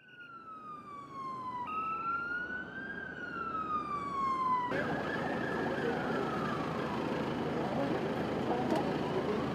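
Emergency vehicle siren wailing in slow rising and falling sweeps, fading in at the start. A little under halfway through the sound changes abruptly: a steady wash of background noise comes up and the siren carries on fainter beneath it.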